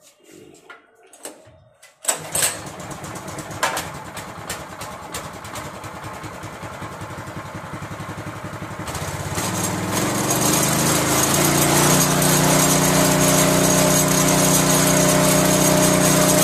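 Power tiller's small petrol engine catching about two seconds in and running, then revving up when the throttle lever is opened and settling into a loud, steady higher speed.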